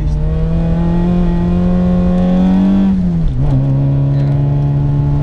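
Citroën Saxo's petrol engine under load, heard from inside the cabin: the engine note climbs slowly, drops sharply about three seconds in, then pulls steadily again at lower revs.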